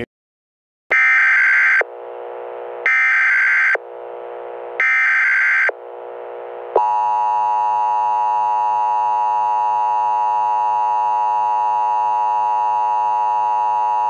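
Emergency Alert System broadcast tones: three short screeching bursts of SAME header data about a second apart, then the steady two-tone EAS attention signal (853 and 960 Hz) held for about eight seconds. A quieter drone sits between the bursts.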